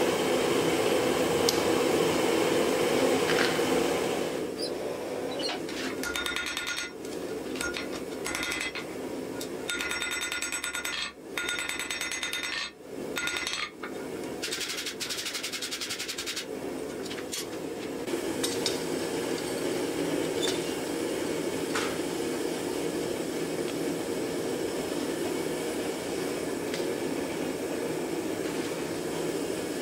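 Hand hammer blows on hot steel at the anvil, a run of strikes with ringing between about six and fourteen seconds in, over a steady rushing noise that continues throughout.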